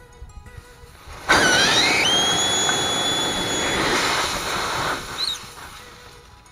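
Compressed air hissing out of a punctured tire through the reamed puncture hole once the reamer is pulled out. It starts suddenly about a second in, with a whistle that rises and then holds steady, and cuts off about five seconds in.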